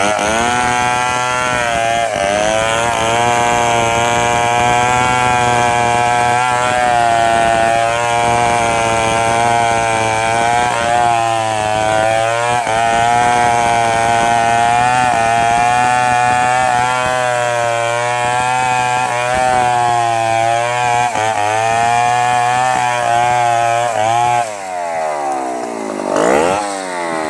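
Stihl two-stroke chainsaw at full throttle, cutting steadily through the trunk of a bayur tree, its pitch wavering slightly under load. About 24 seconds in it comes out of the cut and is revved up and down as the tree starts to fall.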